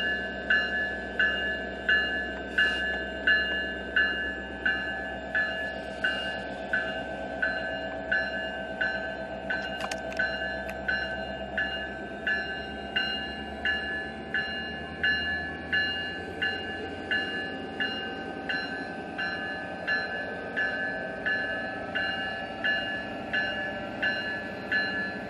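Railroad crossing bell ringing steadily at about one and a half strikes a second, over the rumble of a passing train.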